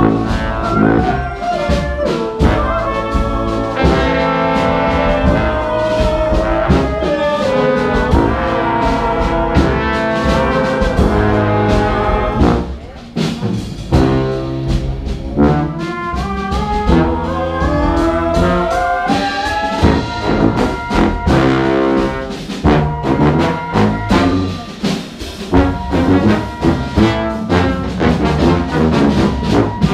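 Large jazz ensemble playing live, with flutes leading over saxophones, trumpets, a sousaphone, keyboard and drums. The music thins out briefly a little before halfway, then picks up again.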